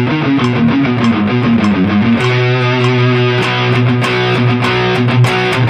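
Electric guitar through a heavily overdriven drive, played as a fast picked single-note run that steps down and back up in pitch. About two seconds in it changes to rapid repeated picking on low sustained notes.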